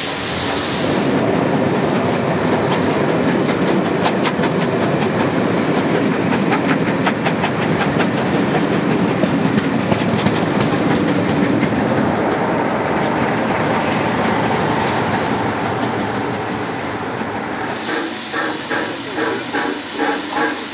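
A train of coaches hauled by a Stanier Black 5 steam locomotive rumbling past, its wheels clicking over rail joints. Near the end the sound changes to the locomotive at a platform, hissing steam, with a quick regular pulsing.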